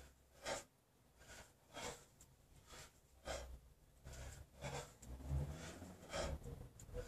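A man's hard, rhythmic breathing while snatching a kettlebell: short forceful breaths, about one every three-quarters of a second, with a low rumble underneath at times.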